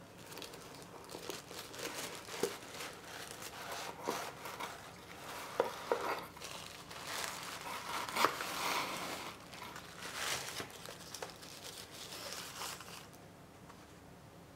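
Tissue paper crinkling and rustling in irregular bursts as it is handled and unfolded, with a few sharp crackles; it stops about a second and a half before the end.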